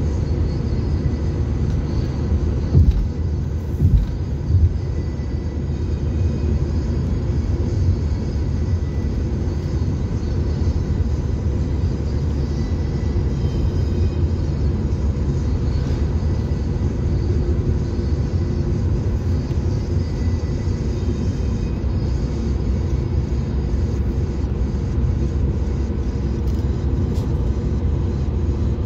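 Steady low rumble of a car driving at motorway speed, tyre and engine noise heard from inside the cabin, with a few brief thumps about three to five seconds in.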